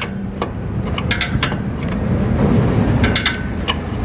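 Metal tools clinking and clicking against a motorcycle's rear-wheel hardware during refitting: clusters of sharp, ringing metallic taps about a second in and again around three seconds in, over a steady low rumble.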